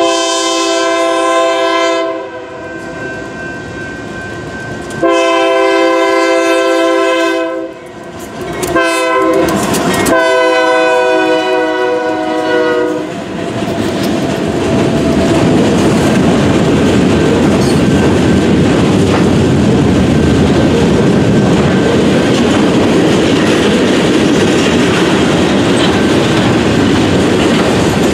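Diesel freight locomotive's air horn blowing the grade-crossing signal: long, long, short, long. Then the train's freight cars roll past with a steady rumble and wheel clatter.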